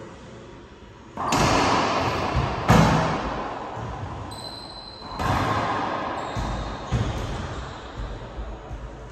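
Racquetball rally: a hollow rubber ball struck by racquets and slamming off the court walls, each hit sharp and loud with a long echoing decay in the enclosed court. There are four strong hits in the first seven seconds, then a few lighter bounces near the end.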